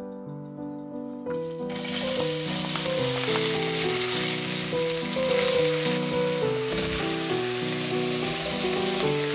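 Diced onion hitting hot olive oil in a stainless steel pot. A sizzle starts suddenly about a second in and then keeps frying steadily.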